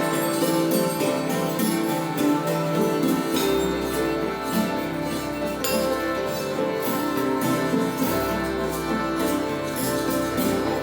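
Improvised acoustic instrumental music: a layer of sustained drone tones under light percussion strokes about twice a second. A deep bass drone comes in about a third of the way through, stops a little past the middle, and returns.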